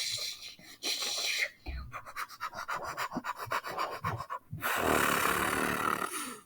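Scratchy rubbing and hissing: a hiss, then a rapid run of crackling clicks from about a second and a half in, then a louder hiss near the end.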